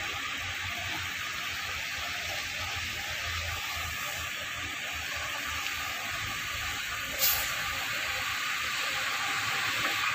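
Steady hiss of rain falling. A short, sharp high-pitched sound cuts through a little past the middle.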